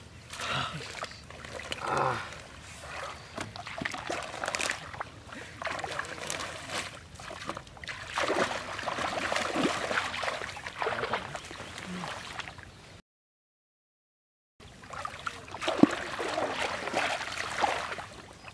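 Water splashing and sloshing as hands tear apart a floating clump of water hyacinth in shallow river water, in irregular bursts. The sound cuts out completely for about a second and a half about two-thirds of the way through.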